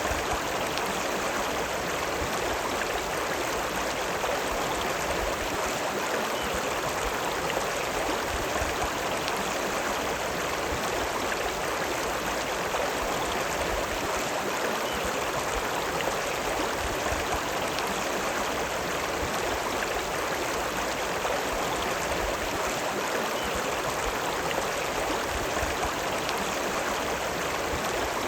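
River water running: a steady, unbroken rush of flowing water.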